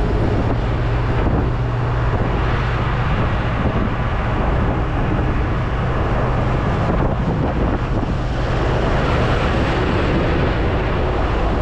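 Truck engine running with road noise, heard from inside the cab of the moving truck, with wind on the microphone. A steady drone with no breaks.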